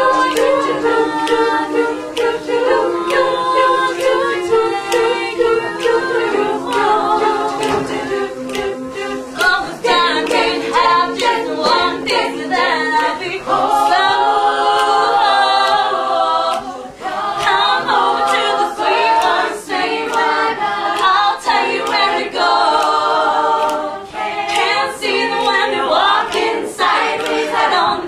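All-female a cappella group singing in several-part harmony, voices only with no instruments.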